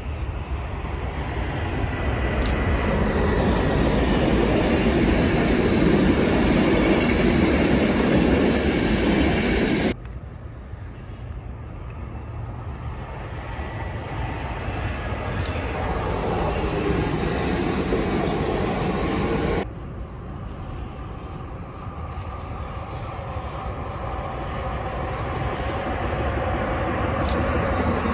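Electric trains running past on the line, heard in three separate passes joined by abrupt cuts about ten and twenty seconds in, each swelling louder as the train nears. The middle pass is a regional electric multiple unit, and the last is a train hauled by two electric locomotives.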